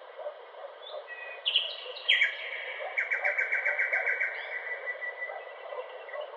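A bird singing over a steady jungle background hiss. Two sharp, loud falling calls about one and a half and two seconds in give way to a rapid trill of about eight notes a second, which trails off into a long, thin, held whistle that fades out.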